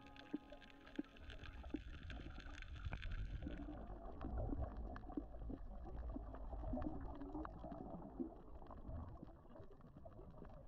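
Muffled water sounds from a camera in or at the surface of the sea: a low rumbling, gurgling wash with scattered small crackling clicks. Faint background music fades out about a second in.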